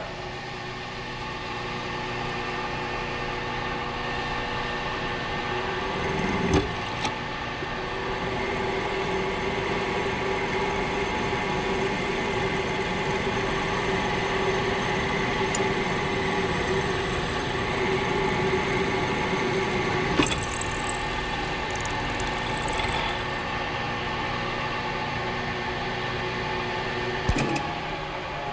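A motor-driven power tool or machine running steadily, a hum of several fixed tones with a noisy wash over it, with three short sharp knocks spread through.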